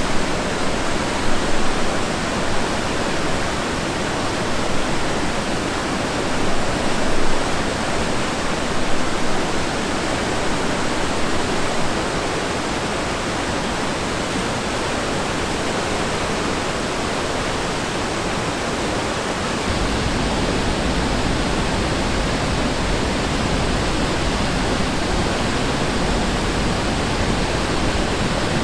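Steady rush of a river's falling water, a dense, even roar. About two-thirds of the way through it turns deeper, with less hiss.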